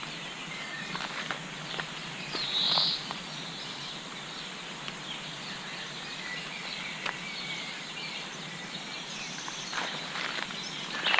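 Small songbirds chirping and singing over a steady background hiss, with one louder call about two and a half seconds in and a few short sharp notes near the end.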